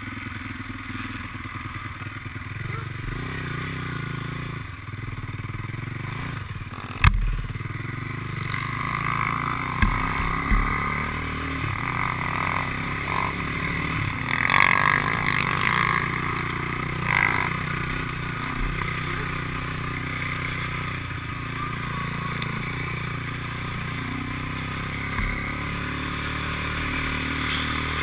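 ATV engine running and revving while riding a dirt motocross track, heard through a helmet-mounted camera. A single sharp bang about seven seconds in is the loudest moment.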